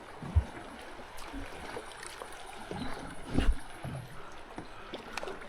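Water lapping and trickling against the hull of a small aluminium boat, with two dull knocks, about half a second in and again about three and a half seconds in.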